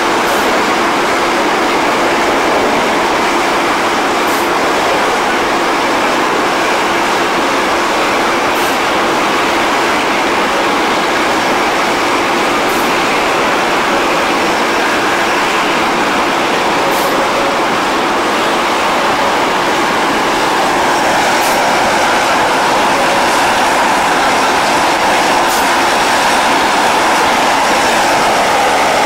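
Steady jet engine noise of a Boeing 737 climbing away after takeoff. It grows slightly louder over the last several seconds.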